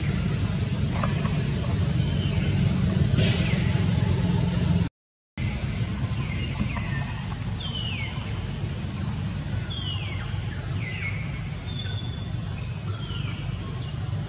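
Birds chirping, with many short falling calls over a steady low rumble. A thin steady high tone runs through the first few seconds, and the sound cuts out completely for half a second about five seconds in.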